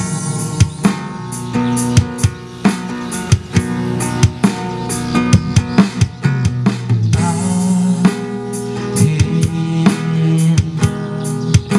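Instrumental break of a pop ballad played on acoustic guitar and drum kit, no vocals: strummed chords over a steady beat of kick and snare hits with rimshots.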